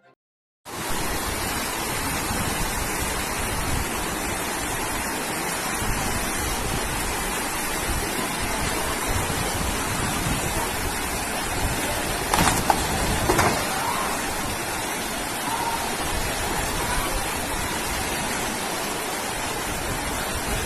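Loud, steady rush of fast-flowing floodwater under heavy rain, starting abruptly about a second in. A few brief knocks stand out about two-thirds of the way through.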